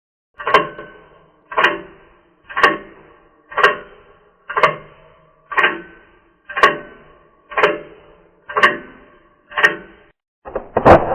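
A sharp strike repeated ten times at an even pace of about one a second, each with a short ringing decay, like a slow clock tick or knock. Near the end comes a louder, rougher burst.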